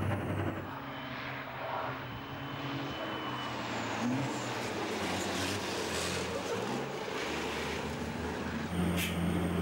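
Race trucks' diesel engines running hard at speed. The drone holds steady, then steps to a new pitch a few times, with a short rise about four seconds in.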